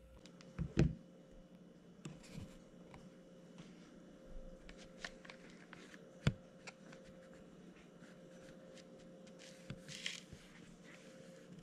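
Soft rustling of paper towel and a hand scraping inside a thin clear plastic cup, with scattered light clicks and knocks against the plastic, the loudest a thump about a second in and a sharp click about six seconds in.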